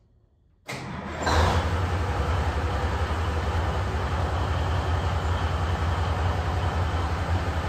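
Cummins NHC 250 six-cylinder diesel engine of an M817 5-ton 6x6 military truck running, a deep pulsing rumble that swells about a second in and then settles into a steady run.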